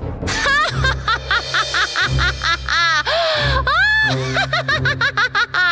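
A villain's cackling laugh, a rapid run of short 'ha' syllables with a longer drawn-out one about three seconds in, over a steady low musical drone.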